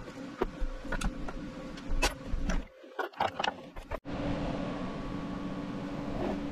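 Scattered clicks, knocks and short rattles of steel chain and tools being handled on a metal welding bench. About two thirds in, these give way to a steady low hum of room noise.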